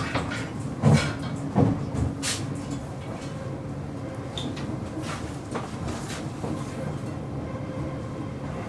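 Copenhagen S-train running along the track, heard from inside the carriage as a steady rumble. A few heavy knocks come about a second in.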